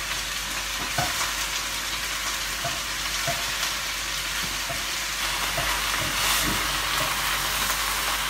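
Vegetables sizzling steadily in hot sesame oil in a wok while being stir-fried with a wooden spoon. A few light knocks come from the stirring.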